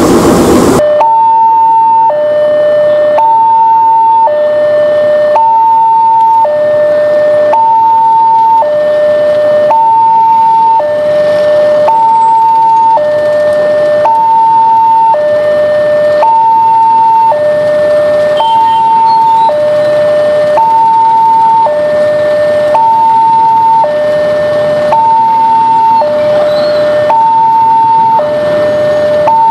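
Two-tone electronic warning alarm of a railway level crossing, sounding steadily high, low, high, low, each tone about a second long. This is the signal that a train is approaching. Under a second in, the loud running of a CC 201 diesel locomotive cuts off abruptly before the alarm begins.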